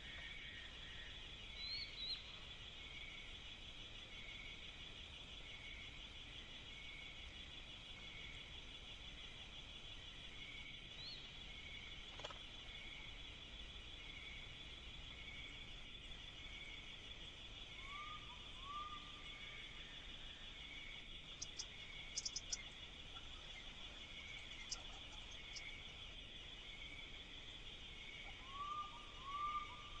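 Faint, steady chorus of insects trilling, with a regular pulse about once a second running through it; a few short bird chirps come and go, and a brief cluster of clicks sounds a little past the middle.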